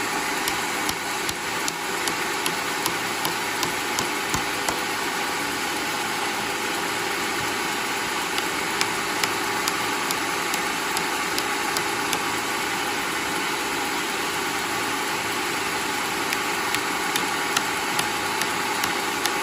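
Homemade sawmill running steadily, its motor and blade making a continuous mechanical noise with frequent sharp ticks through it.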